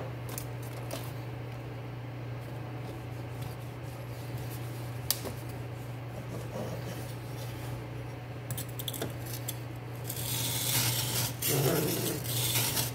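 Clicks and knocks of a folding knife being reclamped in a DMT aligner guide and set down on a whetstone, then, about ten seconds in, the D2 steel blade in the guide starts being stroked back and forth across the stone with a rhythmic scraping rasp: the second side of the edge being ground. A steady low hum runs underneath.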